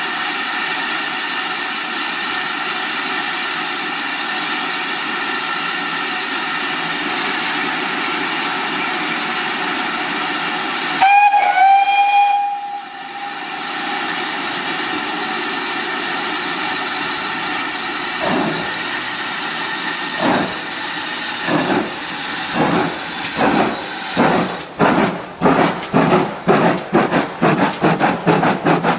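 GWR 57xx-class pannier tank locomotive No. 7714 standing with steam hissing steadily, then giving one short whistle blast about eleven seconds in. From about eighteen seconds its exhaust begins chuffing as it starts away, the beats slow at first and quickening to about four a second as it gathers speed.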